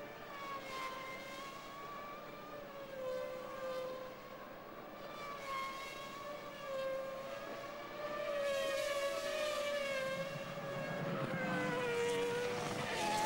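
Formula One cars' V10 engines running at speed: a sustained high-pitched whine that wavers slightly in pitch, growing louder and fuller about two thirds of the way through.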